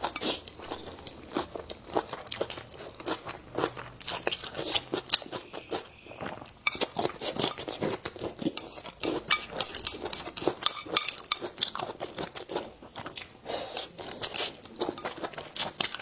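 A person chewing and biting food, with steady irregular crunching and many sharp mouth clicks.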